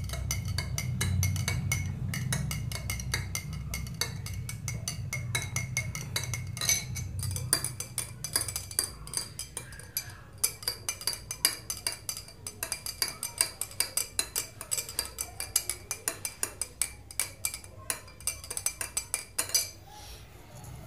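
A spoon stirring in a tall drinking glass, clinking rapidly and repeatedly against the glass as the soap is mixed into the water. The clinks grow sharper and more spaced, about three or four a second, in the second half, and stop shortly before the end.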